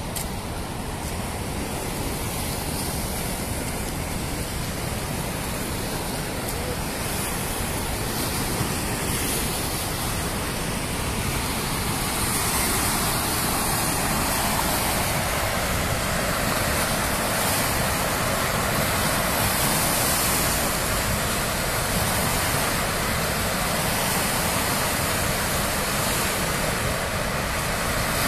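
Floodwater rushing along a swollen river and pouring through the open spillway gates of a dam: a steady noise of rushing water that grows louder about halfway through.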